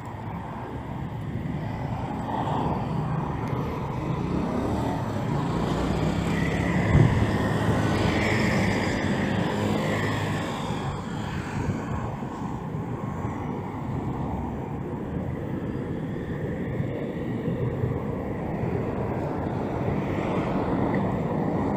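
Wind rumbling on a handheld gimbal camera's microphone while cycling, over the sound of cars and motor scooters on the road alongside. A passing vehicle's engine grows louder about six seconds in and fades by about eleven, with a single knock in the middle of it.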